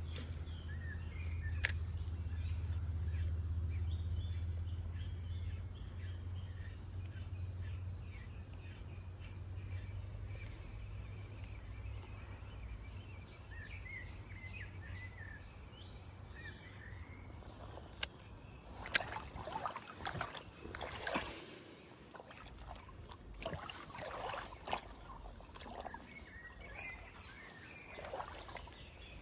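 Riverside ambience: water running and small birds chirping, with a low rumble through the first half. From about two-thirds of the way in come scattered knocks and rustles.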